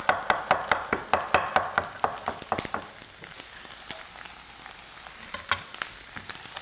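Chef's knife rapidly chopping garlic on a wooden cutting board, about four to five strokes a second, stopping nearly three seconds in. Then sausage sizzles in a frying pan as the garlic goes in, with a few light knocks.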